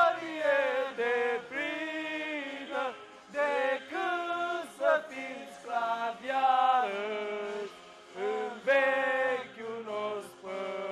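Men singing together in a chant-like way, with held notes broken by short pauses between phrases.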